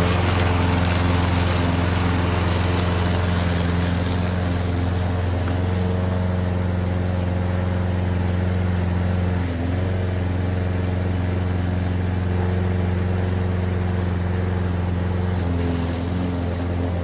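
Toro Recycler walk-behind lawn mower's Briggs & Stratton engine running at a steady cutting speed as it is pushed through tall grass with the bagger fitted. The drone stays even and grows a little fainter as the mower moves away.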